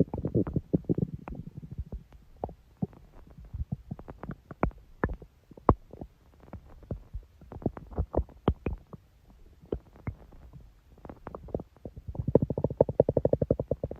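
Human stomach growling, recorded close up: a burst of gurgling rumble at the start, then scattered short pops and gurgles, and a longer pitched growl in the last two seconds.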